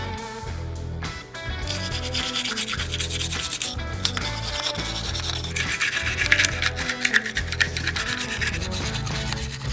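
Scrubbing and rubbing on Sig Sauer P365 pistol parts during cleaning, a dense scratchy noise that starts about a second and a half in. Background music with a steady bass line plays under it.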